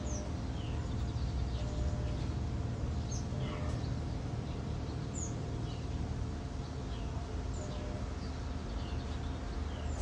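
Outdoor ambience picked up by a NEEWER CM22 wireless microphone in mono mode with no processing, wind muff on: a steady low rumble with scattered short bird chirps every second or so.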